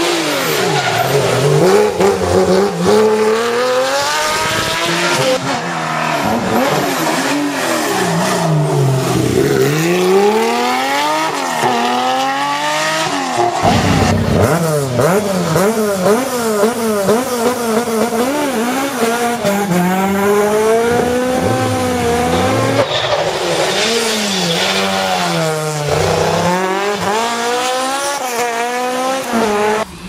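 Historic rally car engines revving hard through the gears, their pitch climbing and dropping again and again with each shift and lift. Several cars are heard in turn, the sound changing abruptly at the cuts between them.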